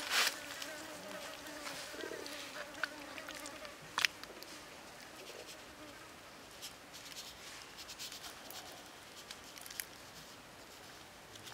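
A flying insect buzzing with a steady hum that fades out about five seconds in. A single sharp click about four seconds in.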